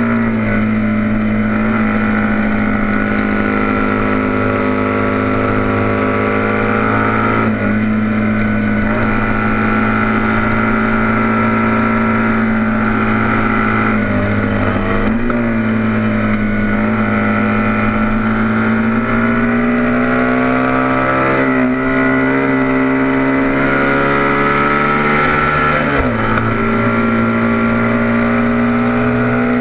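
Vintage heavyweight racing motorcycle engine running hard at high revs under race throttle, heard from on board with a steady rush of wind. Its pitch stays fairly level, dipping briefly about four times before settling again.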